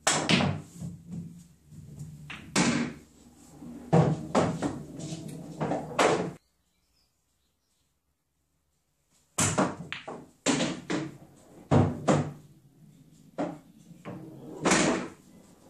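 Pool balls being struck with a cue and knocking against each other on a pool table: runs of sharp clacks and knocks. They break off into silence about six seconds in, and a second run of knocks starts about three seconds later.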